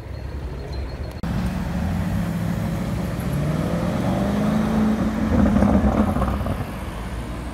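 Lamborghini Urus twin-turbo V8 accelerating away through a turn. The engine note climbs steadily in pitch and is loudest about five to six seconds in, then eases off.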